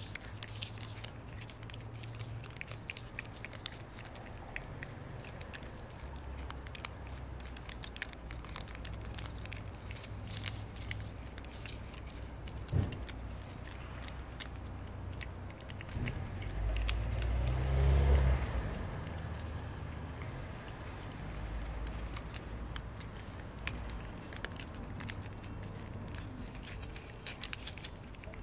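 A cat licking purée from a squeeze-tube treat: a steady run of small, wet tongue clicks and smacks. A single sharp knock comes about halfway through, and a louder low rumble swells and fades about two-thirds of the way in.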